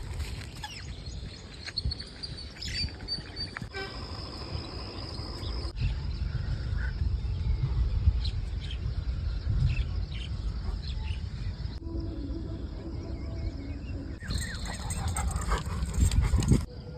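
Dogo Argentino making dog sounds over a steady low rumble.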